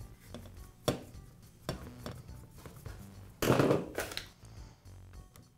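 Background music with a few light clicks of a screwdriver driving the screws that hold a new ball bearing in a circular saw's aluminium gearbox housing, then a louder clatter about three and a half seconds in as the metal housing is handled on the bench.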